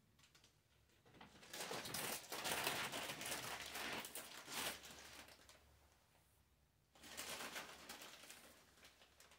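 Crinkling rustle of wrapping material being handled, in two spells: one from about a second in, the louder, for about four seconds, and a shorter one from about seven seconds to near the end.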